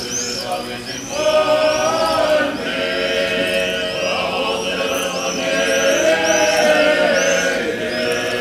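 Orthodox clergy chanting a liturgical hymn a cappella, men's voices holding long notes together and moving from note to note. Small birds chirp repeatedly over the singing.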